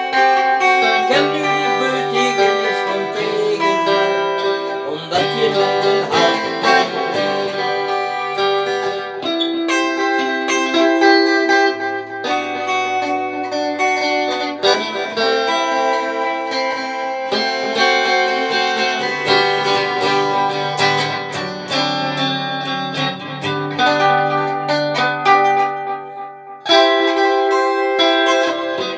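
Instrumental break in a Dutch pop ballad with no singing: a plucked guitar melody over held bass notes. The music dips out briefly near the end, then comes back in.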